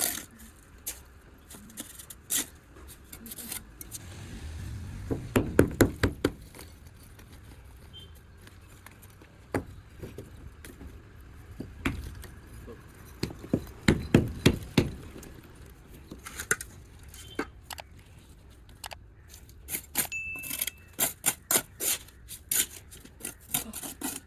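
Work noise of hard knocks and clinks. A quick run of strikes comes about five seconds in and again around fourteen seconds, then a string of lighter clicks near the end.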